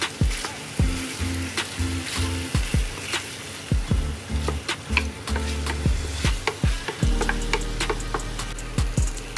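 Chicken pieces sizzling in a nonstick frying pan as a wooden spatula stirs and scrapes them, with many short clicks and scrapes. Background music with a steady beat plays underneath.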